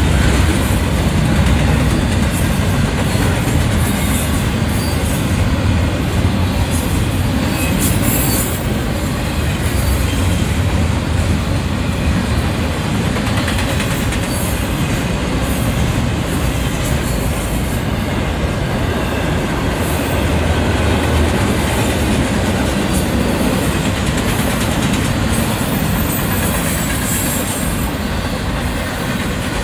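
Union Pacific double-stack intermodal freight cars rolling past: a steady, loud rumble of steel wheels on the rails.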